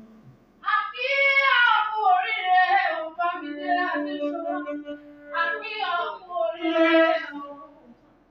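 A high voice singing a melody in drawn-out phrases, with short breaks between lines; it fades out near the end.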